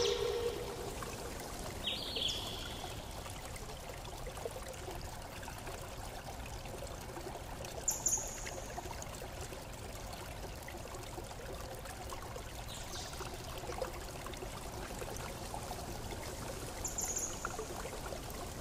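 Steady rushing noise like running or lapping water, with a few brief high-pitched chirps over it.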